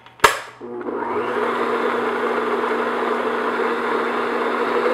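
Electric stand mixer switched on with a click, its motor spinning up and then running steadily at medium-high speed, the paddle beating butter and sugar together in a glass bowl.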